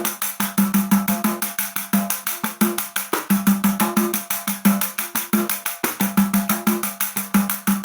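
Pandeiro (Brazilian frame drum with jingles) played in a fast, even rhythm of about eight strokes a second. The jingles rattle on every stroke and low open tones from the drum head recur in the pattern. It is played with a technique that brings out the jingles without the supporting hand, for a cleaner pandeiro sound.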